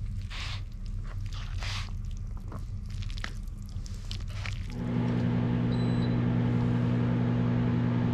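Soft rustling of food packaging. About five seconds in, a steady, louder electrical hum with a hiss switches on abruptly, like an appliance starting.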